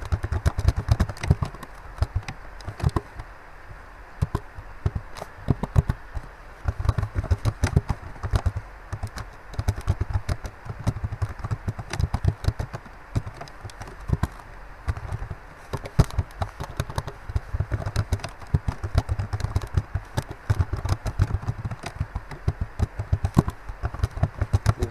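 Typing on a computer keyboard: a fast, irregular run of key clicks, with brief lulls between bursts.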